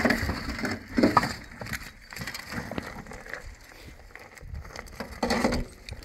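Steel shovel scraping and scooping stony dirt and dropping it into a metal wheelbarrow: a few short, gritty scraping strokes, the loudest at the start, about a second in and near the end.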